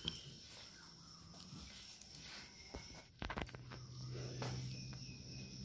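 Quiet footsteps with a few sharp knocks about three seconds in, and a faint low steady hum in the second half.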